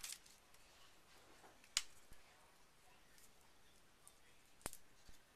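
Near silence broken by two sharp clicks about three seconds apart, from small craft supplies being handled at a table while a glue dot is applied.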